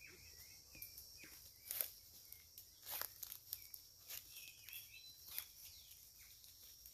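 Footsteps crunching on dry fallen leaves, a few irregular crunches, with faint bird chirps and a steady high insect hum.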